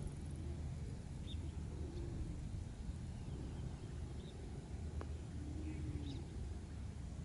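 Open-grassland ambience: a steady low rumble, with faint, short bird chirps now and then.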